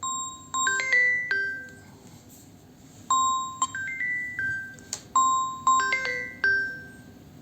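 Samsung Galaxy A03s phone ringtone: a short melody of clear, bell-like chiming notes, played three times with brief pauses between.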